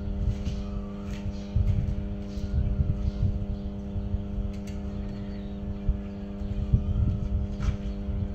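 Steady electrical mains hum, a strong low note with several higher overtones, under an uneven low rumble with a few faint clicks.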